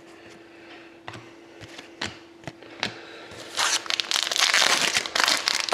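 A few light clicks of cards being handled, then, about three and a half seconds in, the foil wrapper of a hockey card pack crinkling and tearing loudly as it is ripped open.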